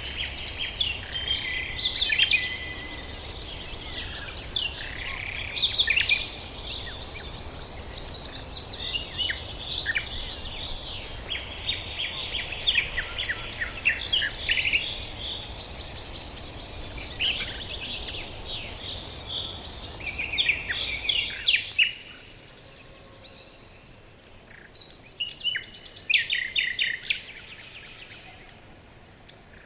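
Birds calling and chirping, many short calls and rapid trills over a steady background hiss. About two-thirds of the way through the hiss drops out suddenly and a few more chirps follow.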